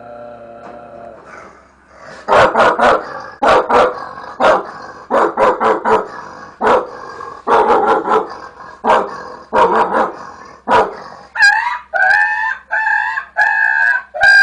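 A boy imitating a dog with his voice. From about two seconds in he gives sharp barks in quick groups of two or three, and near the end he switches to a run of longer, whining yelps that bend in pitch.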